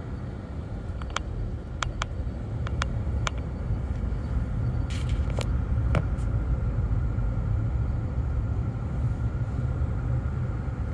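A car driving, heard from inside the cabin: steady low road rumble, with a few light clicks and ticks scattered through the first six seconds.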